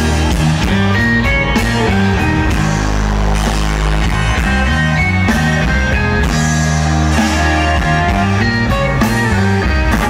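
Live band music played loud through the PA: electric and bass guitars over a drum kit with a steady beat.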